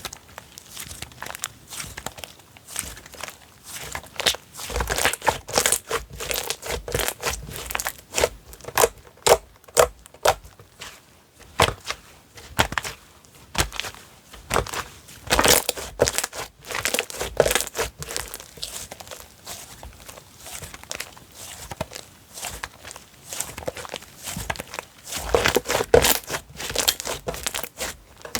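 Hands squishing, pressing and poking a slime, making dense sticky clicks and crackly pops in irregular clusters.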